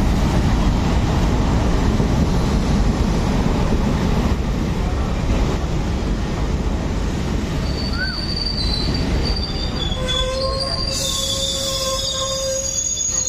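Passenger train rolling into a station: a loud, steady rumble of the coaches on the track, then from about halfway through, several high wheel-and-brake squeals that come and go as the train slows to a stop.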